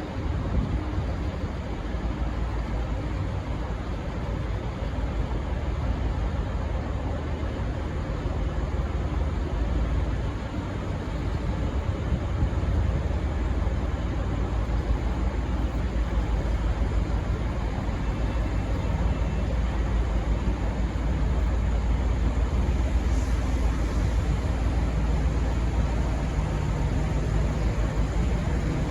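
Low, steady rumble of a V/Line N class diesel locomotive running as it pulls into the station, growing a little louder about twelve seconds in. No horn sounds.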